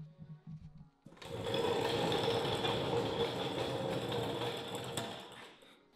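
Casters of a rolling shop seat rattling steadily across a concrete floor, starting about a second in and fading out near the end.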